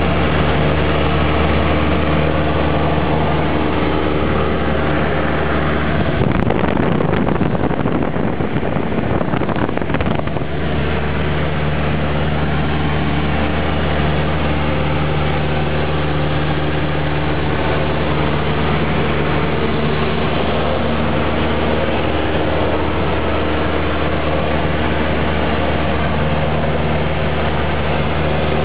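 Cessna 172's piston engine and propeller droning steadily at cruise, heard inside the cabin. Between about six and ten seconds in, a rushing noise briefly swells over the drone.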